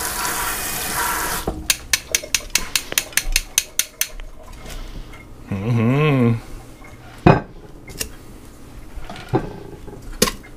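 Metal kitchen tongs clicking rapidly over and over, then clacking against the cooker's metal inner pot and a plate as ears of corn on the cob are lifted out, with one loud knock about seven seconds in. A rushing hiss in the opening second and a half cuts off, and a short hummed 'mmm' sounds about six seconds in.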